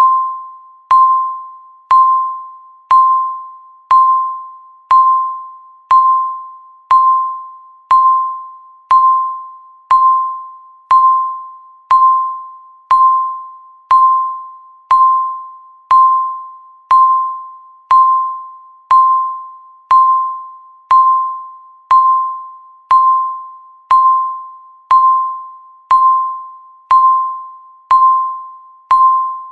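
Countdown timer beeping once a second: a single mid-pitched electronic chime tone that strikes sharply and fades away before the next, ticking off the seconds left.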